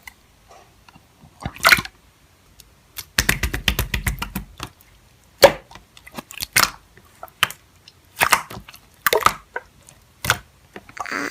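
Slime being squished and pressed by hand: sticky pops and crackles, with a denser run of squelching about three seconds in.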